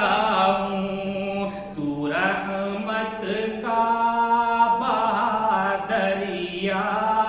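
A solo man chants an Urdu devotional nazm, a supplication poem, with no instruments. The melody glides between notes and holds one long steady note about four seconds in.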